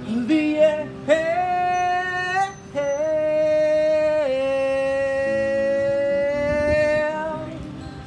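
Male singer holding high sung notes with acoustic guitar underneath: a few short notes, then one long note of about four seconds that steps down in pitch once.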